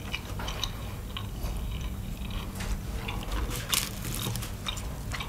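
Eating sounds at a table: scattered light clicks of a fork against a plate and some chewing, over a low steady hum.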